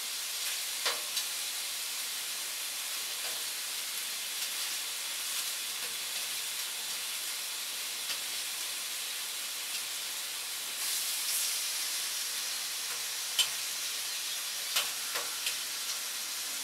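Chicken pieces sizzling steadily in hot oil in a wok, with a few sharp taps near the end.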